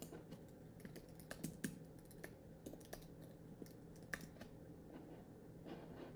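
Computer keyboard typing: faint, irregularly spaced keystrokes.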